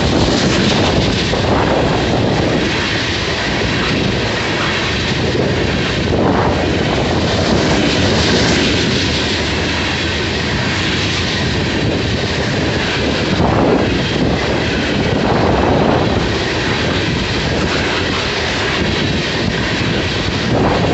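Loaded Florida East Coast Railway freight train of tank cars rolling past close by. Its steel wheels run steadily and loudly on the rails, swelling briefly now and then as wheel sets pass.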